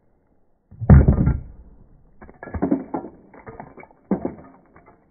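Plastic single-shot airsoft Uzi being handled and cocked: a heavy thump about a second in, then several clusters of rattling, creaking clicks from its spring mechanism.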